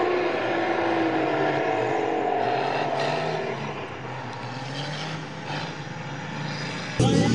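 Cummins diesel engines of Dodge mega trucks running hard through mud, heard from across the field, their pitch sinking and fading about three and a half seconds in. Just before the end the engine sound jumps suddenly louder.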